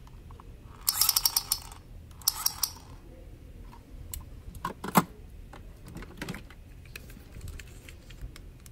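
Hard plastic toy guns handled in the hand: two short bursts of rapid plastic clicking and rattling about one and two seconds in, then a single sharp click about five seconds in.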